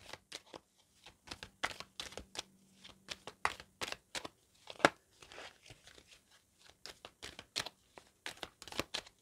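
A tarot deck shuffled by hand: irregular soft flicks and slaps of the cards against each other, several a second.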